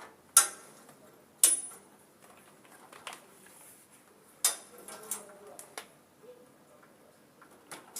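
Sharp metallic clicks and taps of a tool and cable end being handled while a battery wire is connected to a solar charge controller's terminal. There are three loud clicks in the first half, with a few fainter taps between and after them.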